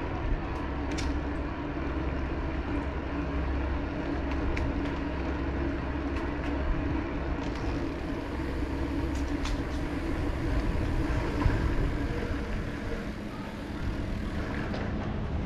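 Electric mountain bike rolling along: a steady low rumble of riding noise with scattered light ticks and clicks.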